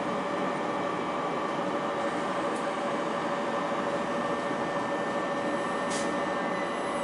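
A Class 377 Electrostar electric multiple unit standing at the platform, its onboard equipment giving a steady hum with several steady whining tones. A brief high hiss comes about six seconds in.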